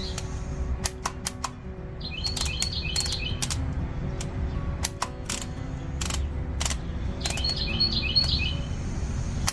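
Keys being pressed on a handheld label maker, a sharp click now and then as the label is typed out. A bird chirps twice in the background.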